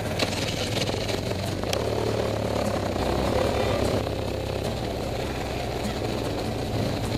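BMW R1200GS motorcycle riding, heard from a camera mounted on the bike: a steady low drone from its boxer-twin engine under a rush of wind noise.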